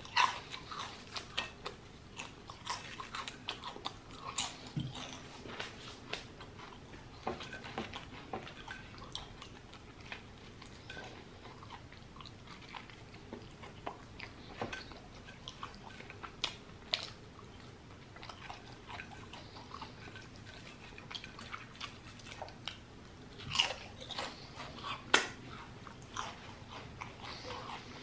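A person chewing a cheesesteak sandwich close to the microphone: soft, wet chewing and biting of the bread roll, with many small mouth clicks. Two louder, sharper bites or clicks come near the end.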